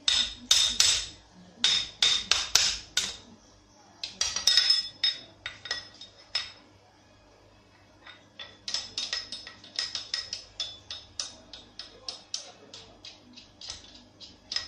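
Ratchet wrench clicking in short runs of sharp metallic clicks, then a steadier run of about four clicks a second, as bolts are run in on a car engine block during assembly.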